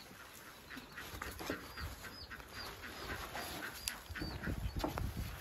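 Small bird chirping in short, high, falling notes, about two a second, with low thuds and rustling near the end.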